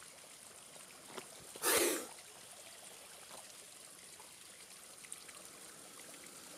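Steady trickling, water-like hiss with scattered faint ticks. Nearly two seconds in there is a short, loud rush of noise lasting about half a second.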